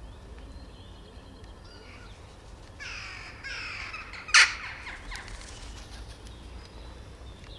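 Western jackdaw calling: a few short calls in quick succession about halfway through, the last one the loudest and sharpest.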